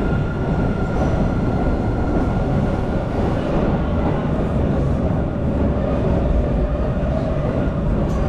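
Subway train running in an underground station: a steady low rumble with a faint steady whine, a second whine growing stronger near the end.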